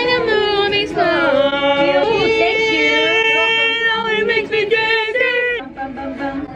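A girl's voice singing, sliding between pitches at first, then holding one long note for about three seconds before breaking off near the end.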